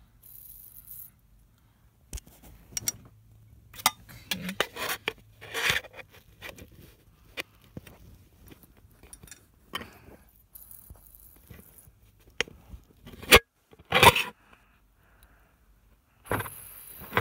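Handling noise of a small fidget spinner: scattered irregular clicks, light rattles and scrapes, with two loud sharp clicks a little past the middle and a short rustle near the end.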